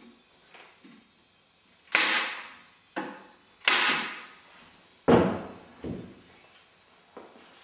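Five loud knocks from the wooden frame being handled, spread over about four seconds, each ringing briefly before fading; the first, third and fourth are the loudest.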